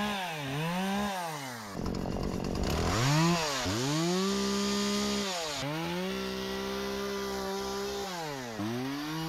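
Two-stroke chainsaw running at high revs while it works through the branches of a felled pine. Its engine note dips sharply and climbs back about five times, with a rougher, rasping stretch about two seconds in.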